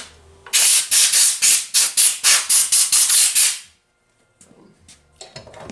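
A rapid series of short hissing bursts, about a dozen at roughly four a second, stopping suddenly well before the end.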